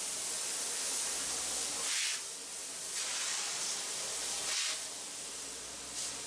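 Water wand on a garden hose spraying a jet of water across a porch floor to wash off debris: a steady hiss that briefly eases off three times as the spray is moved.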